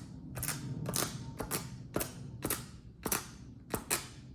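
A dust-absorber sticker being dabbed onto an iPad's glass screen and pulled off again: a run of sharp sticky clicks, about two to three a second.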